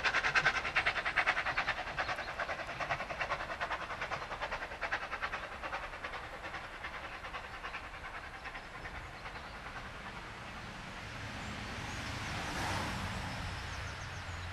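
Narrow-gauge steam locomotive No. 12 Hutchinson, a Beyer Peacock 2-4-0 tank engine, pulling its train away: a fast, even run of beats and rail clicks that fades as the train draws off. A broad rushing sound then swells and dies away near the end.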